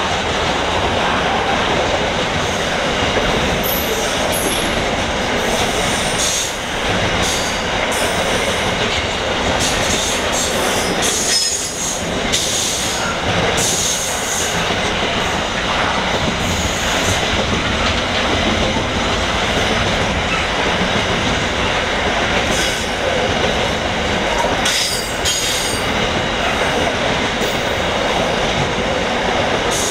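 Container wagons of a long intermodal freight train rolling past close by: a loud, steady rumble and rattle of steel wheels on rail, with short high wheel squeals now and then as the wagons take the curve.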